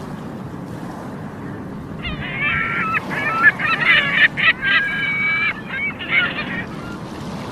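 Seagulls calling: a run of harsh, pitched calls starting about two seconds in and ending shortly before the end, over the steady wash of the sea.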